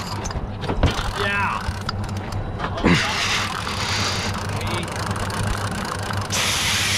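Twin Yamaha 300 outboard engines idling with a steady low hum.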